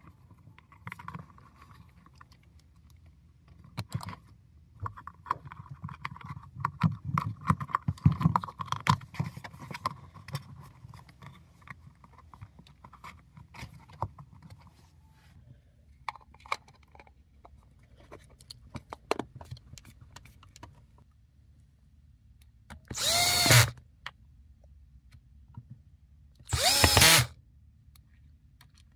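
Cordless drill-driver running in two short bursts of about a second each near the end, driving screws into a plastic pump housing. Before that, scattered knocks and clicks of parts being handled and fitted together.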